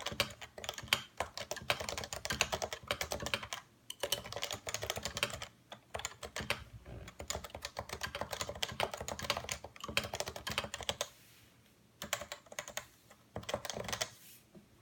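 Typing on a Realforce 87U tenkeyless keyboard with Topre 55 g electro-capacitive switches: fast runs of keystrokes broken by short pauses, thinning to a few scattered strokes in the last few seconds.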